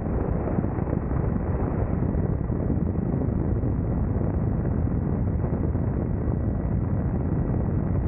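Helicopter in flight heard from the open cabin door: steady engine and rotor noise mixed with wind buffeting the microphone, with a faint steady high whine.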